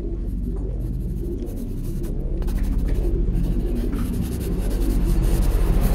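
A pen scribbling on paper, close and loud, growing louder and cutting off suddenly at the end.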